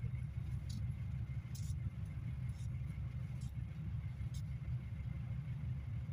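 Steady low rumble of a GAZelle Next minibus heard from inside the passenger cabin while it idles in stopped traffic, with a few faint short clicks scattered through it.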